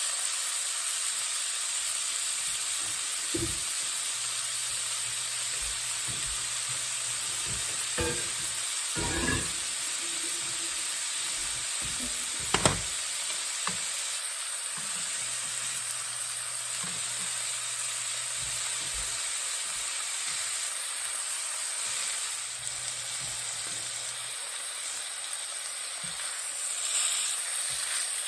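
Chicken pieces sizzling in hot oil in a frying pan as they brown: a steady frying hiss, with a few knocks of the utensil against the pan, the sharpest about halfway through.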